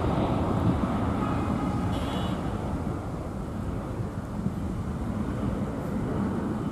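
Boeing 737-700's CFM56-7B jet engines at takeoff power as the airliner accelerates down the runway, heard from across the airfield as a steady rumble that slowly fades.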